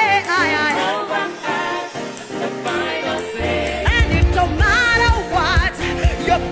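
Live gospel worship music: a woman sings the lead melody with vibrato over a keyboard-led band, with backing singers. About three and a half seconds in, the drums and bass come in under her with a steady beat.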